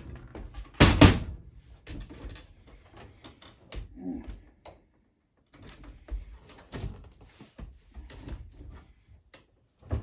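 Knocks and clunks of a microwave oven being handled and shifted into position against kitchen cabinets, the loudest thump about a second in, with lighter knocks through the rest.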